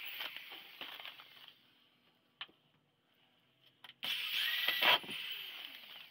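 Handheld electric drill running in one short burst of about a second, about four seconds in, after scattered knocks and rattles of tools and workpiece being handled on a wooden bench. The footage is sped up to double speed.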